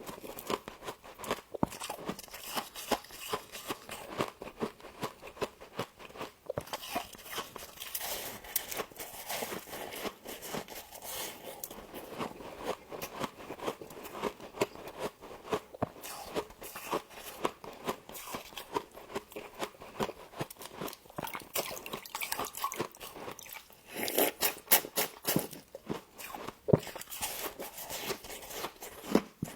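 Close-up crunching and chewing of mouthfuls of frost. Dense, crackly crunches run throughout, with a run of louder crunches near the end.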